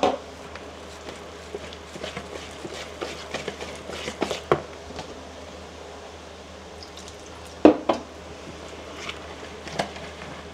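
Metal wire whisk stirring a thin flour-and-water batter in a plastic mixing bowl, with scattered light taps and clicks. There are louder knocks right at the start and again about three-quarters of the way through.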